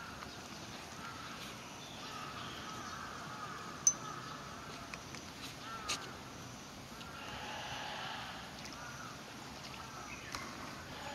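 Water sloshing around a Malayan tapir wading in its pool, with birds calling in the distance and two sharp clicks, the first about four seconds in.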